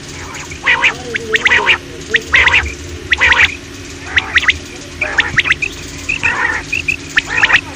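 Common quail calling over and over: quick clusters of short, sharp, high notes alternating with rougher, harsher calls, about one group every second.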